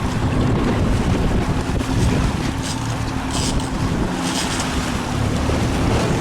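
Wind buffeting the microphone aboard a boat at sea, over the wash of water and a steady low hum.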